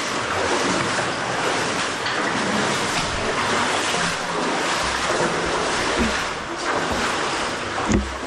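Steady rush of flowing water inside a cave, with a few soft low thuds and one sharp knock about eight seconds in.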